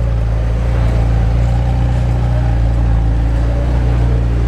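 An engine running steadily, not revving: a deep, even drone that holds one pitch.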